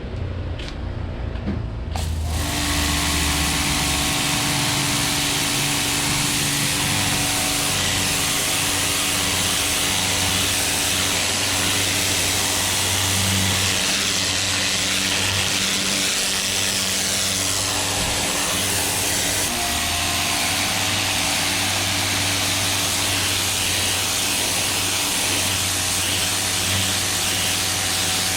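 Ryobi 2000 psi electric pressure washer starting up about two seconds in, then running steadily: an electric motor and pump hum under the loud hiss of high-pressure water spraying from the wand.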